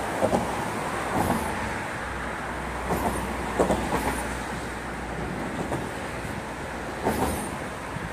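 Steady road traffic noise on a bridge, with a low rumble through the middle and a few brief knocks or rustles.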